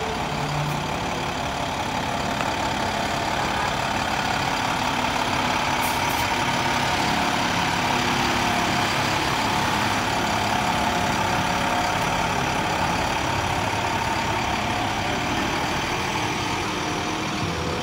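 Fire truck's engine running steadily as the truck rolls past close by.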